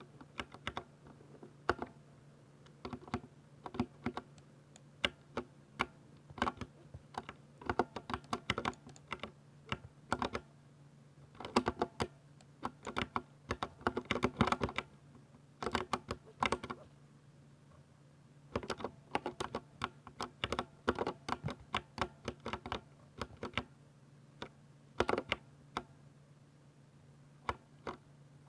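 Typing on a 60% mechanical keyboard with silver switches: quick runs of sharp keystroke clicks in bursts, with brief pauses, over a faint steady low hum.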